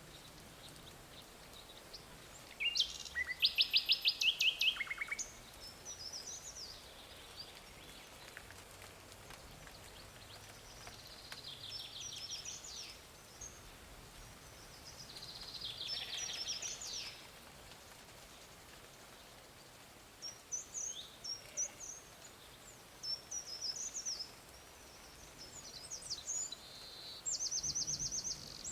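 Songbirds singing: several short song phrases of rapid high trills, the loudest about three to five seconds in, over a steady faint background hiss.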